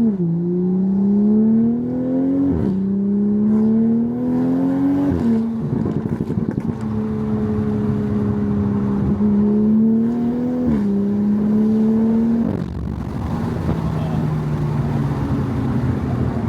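Toyota Supra Mk5's turbocharged B58 straight-six pulling through the automatic's gears under hard acceleration. The engine note climbs and then drops at each upshift, about three times. Near the end it falls to a lower, steady drone as the throttle is eased.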